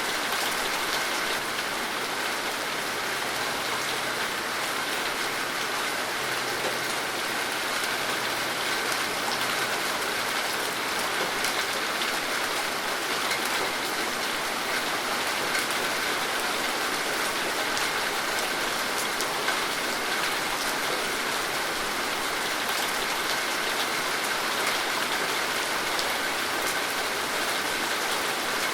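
Steady rain falling, a dense patter of individual drops over an even hiss.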